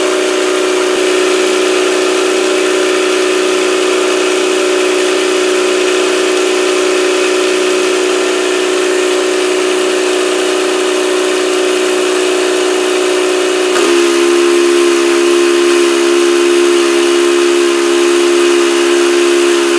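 Playmates Fun-To-Drive toy dashboard's electronic engine sound effect: a steady, buzzy drone with hiss over it. About 14 seconds in the tone shifts to a different, slightly louder pitch, as the toy's driving sound changes.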